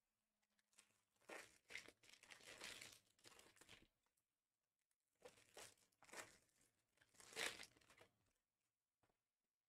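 Faint crinkling and tearing of trading card packaging as cards are handled, in two stretches of rustling: from about a second in to four seconds, and again from about five to eight seconds.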